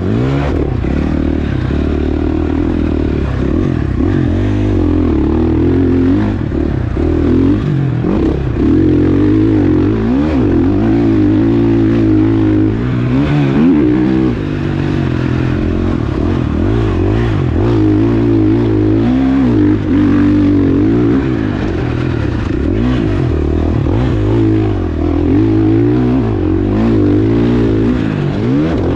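KTM 450SXF four-stroke single-cylinder dirt bike engine running hard on a motocross track, revving up and falling back over and over as the throttle is opened and closed.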